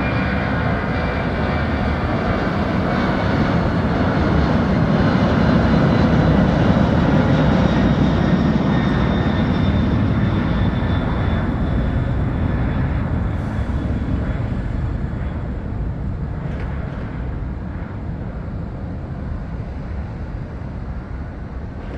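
Boeing 767-200 freighter's twin jet engines at takeoff power. The roar with a thin whine swells to its loudest about seven seconds in, then fades as the aircraft passes and moves away, the whine sliding slightly lower in pitch.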